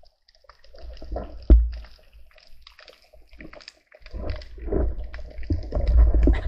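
Underwater sound at a diver's camera: faint scattered crackling clicks, a single heavy thump about a second and a half in, then from about four seconds in a loud churning rush of water and bubbles as the diver moves through the water.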